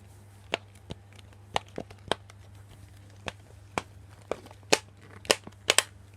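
The bubble buttons of a dimple digit fidget toy being pressed and popped: a run of sharp, irregular clicks that come faster and louder in the last second and a half.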